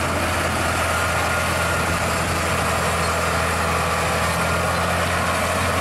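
Scania road-train truck's diesel engine running steadily as it hauls loaded side-tipper trailers, a low, even drone that does not change.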